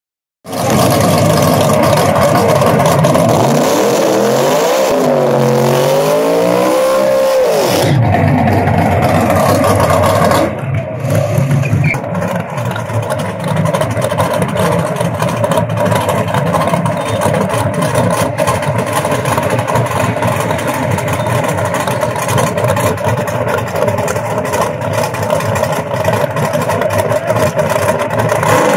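Drag-race cars doing burnouts at the start line: engines revving hard over the hiss of spinning tyres for about ten seconds, the pitch swinging up and down. The engines then run steadily at idle while the cars stage.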